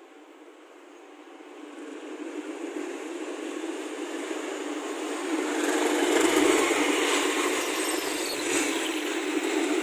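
A CC201 diesel-electric locomotive hauling a rail crane and a coach approaches and passes close by. The engine and wheel-on-rail noise build over several seconds and are loudest as the locomotive passes about six seconds in, then the crane and coach keep rolling past.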